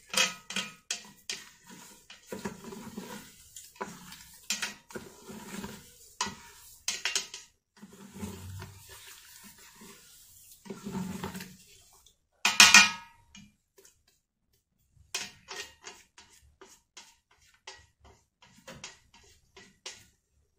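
A spoon stirring a liquid mix of millet, coconut milk and strawberries in the stainless steel inner pot of an Instant Pot electric pressure cooker, with repeated clinks and scrapes against the metal. One louder clank about twelve seconds in, then lighter, sparser taps.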